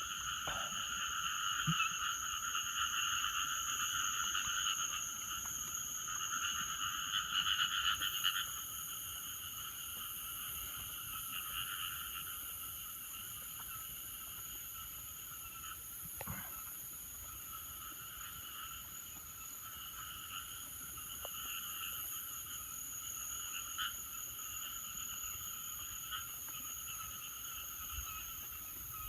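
Chorus of frogs calling in dense overlapping calls, louder for the first eight seconds or so, over a steady high-pitched trilling of insects.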